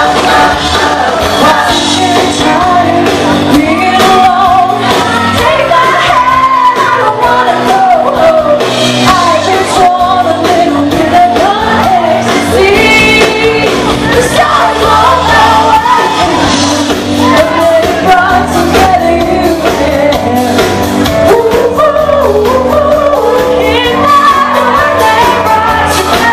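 A live band playing a pop-rock song, with a woman singing lead into a microphone over the instruments.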